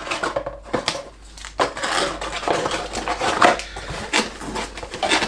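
A small cardboard box and its packaging being handled and opened by hand: irregular crinkling and rustling with scattered clicks and light knocks.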